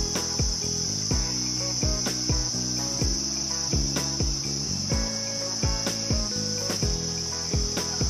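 Steady, high-pitched insect drone from forest insects, running without a break, over background music of plucked notes at a regular beat.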